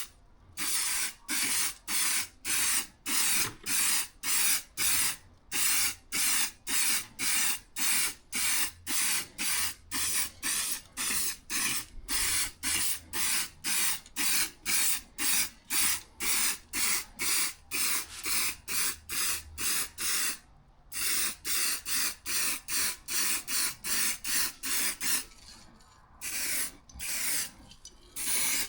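Aerosol spray can coating motorcycle exhaust header wrap, fired in short hissing bursts at about two a second. It pauses briefly twice near the end.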